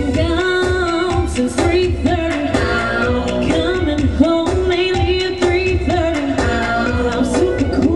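Pop song playing, a sung melody over a steady bass beat.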